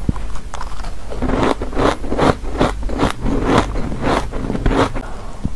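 Soft, crunchy frozen ice being chewed, picked up close by a clip-on microphone. About a second in, a steady run of about nine crisp crunches starts, a little over two a second, and it stops shortly before the end.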